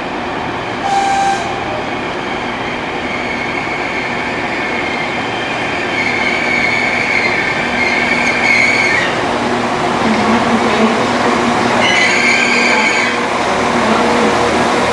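Northern Class 195 diesel multiple unit pulling into a platform and braking. A steady rumble grows slowly louder as the train draws alongside, with a high squeal from about six to nine seconds in and again around twelve seconds as it slows.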